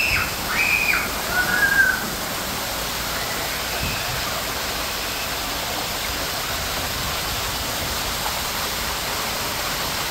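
Steady rush of falling water, with a few brief high-pitched calls in the first two seconds.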